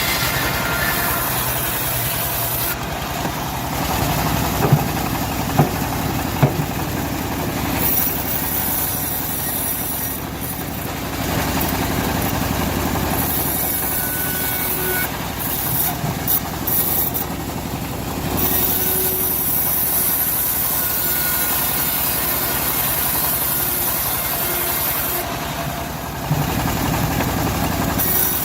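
Homemade bandsaw mill running steadily, its drive droning as the blade cuts a teak log, with a high hiss that comes and goes. A few sharp knocks sound about five to six seconds in.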